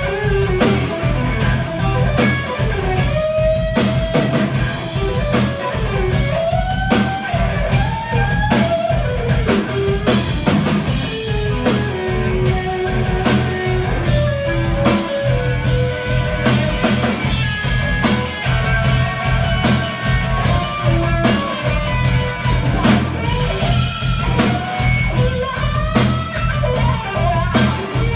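Live blues trio playing: electric guitar lead with bent, gliding notes over electric bass and a steady drum-kit beat, with no vocals.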